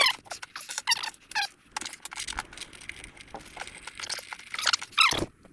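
Irregular clicks, taps and short squeaks from hand work on a TKO600 transmission while its gear oil is being drained, with a louder falling squeak near the end.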